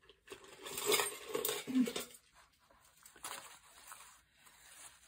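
Rustling and clinking as a coil of zipper tape and metal zipper pulls are handled on a tabletop, loudest between about one and two seconds in, then lighter handling.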